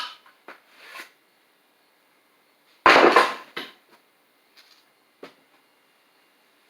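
Metal bench-vise parts handled on a workbench: a few light knocks and one loud clatter about three seconds in.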